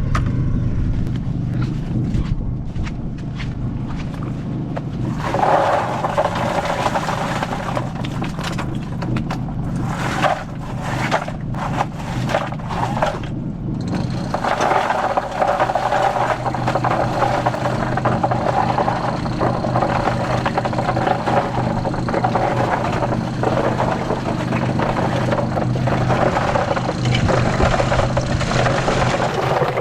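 Cement mixer running with a load of oysters tumbling inside the drum. A steady motor hum sits under a gritty rattle and scrape of shells that gets louder about five seconds in. The tumbling knocks barnacles off the oysters.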